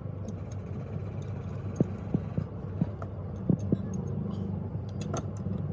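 A machine running with a steady low hum, with a scattered series of light clicks and knocks about two to four seconds in and again near the end.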